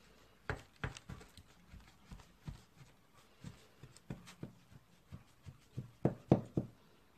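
Large kitchen knife cutting through rolls of buttered filo pastry on a parchment-lined baking tray: a string of short, irregular clicks and taps as the blade presses through the layers, loudest near the end.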